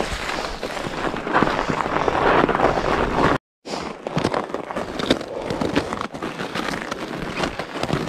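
Fat bike tyres crunching and crackling over snow, twigs and leaf litter, a steady run of dense clicks and crunches. The sound cuts out completely for a moment about three and a half seconds in, then resumes with sharper, more separate crackles.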